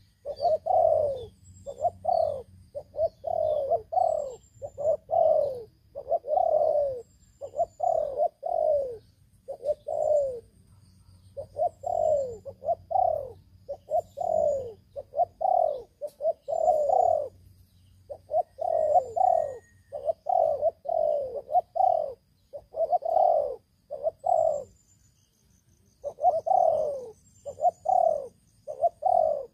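Spotted doves cooing over and over in deep, repeated phrases, with short pauses between runs. Faint high chirps of small birds sound above them.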